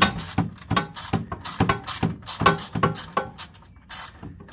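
Quarter-inch drive ratchet with a 5/16 socket clicking in quick, uneven strokes as it backs out a bolt on a snowblower's recoil starter housing. There is a brief pause near the end.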